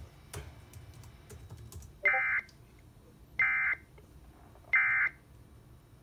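Three short, buzzy bursts of Emergency Alert System digital data tones, about a third of a second each and spaced about 1.3 s apart: the end-of-message code that closes an EAS Severe Thunderstorm Warning.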